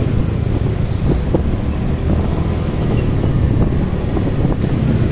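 Wind buffeting the microphone while moving through street traffic, over a steady low rumble of engines and tyres from the surrounding motorcycles and cars.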